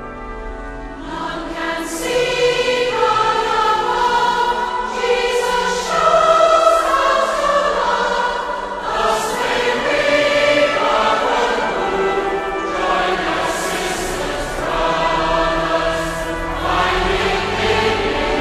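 A choir singing a hymn with musical accompaniment, coming in quietly and growing fuller about a second in.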